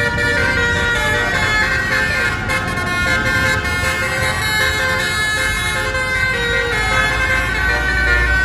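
Bus's Basuri 'telolet' musical horn sounding continuously, several horn tones at once in a warbling chord. A low rumble underneath grows louder in the second half.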